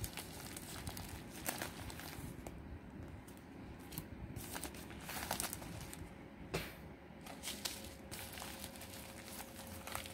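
Plastic packaging and a padded mailer crinkling and rustling in irregular crackles as items are pulled out and handled, loudest about a second and a half in and again around five to six seconds in.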